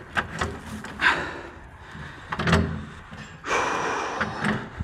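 A few sharp knocks and thuds, then a longer scraping noise about three and a half seconds in, as of a tool or board dragged over a hard floor.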